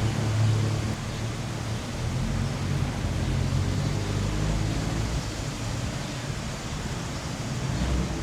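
Street traffic: vehicle engines running as a low hum over a steady rush of noise.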